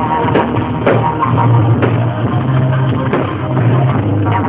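Loud rock music with drums, bass and guitar and a steady beat, the soundtrack of a fireworks display set to music.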